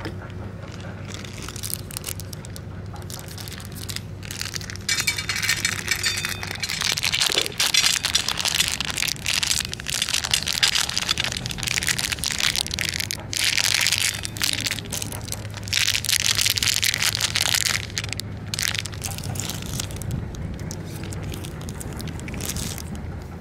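A cat crunching dry kibble from a metal dish, with a foil snack bag crinkling loudly in bursts through the middle as food is shaken out onto the dish.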